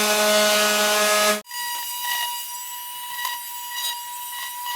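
Woodworking power tools: a loud running motor with a steady hum cuts off abruptly about a second and a half in, followed by a steady high-pitched motor whine with a few light taps.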